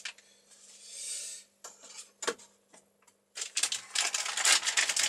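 Clear plastic bag around a LiPo battery pack crinkling and rustling as it is handled, with a few clicks and taps in the first half. The crinkling turns dense and continuous a little past the middle.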